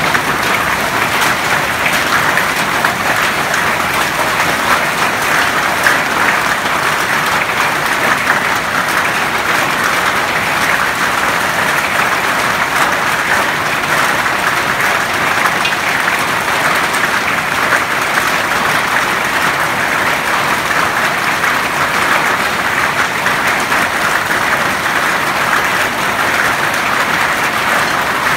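Hailstorm: hailstones falling hard, a loud steady clatter of countless small hits on the ground and the surfaces around.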